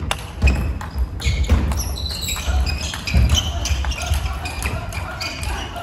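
Table tennis rally: the ball clicking sharply again and again off rubber bats and the table, with players' footwork thudding on the wooden floor.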